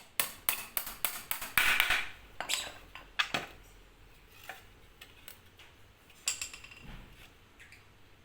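Cage parts being handled and fitted together during assembly: a quick run of sharp clicks and knocks with a short scrape about two seconds in, then another brief cluster of taps a little past six seconds.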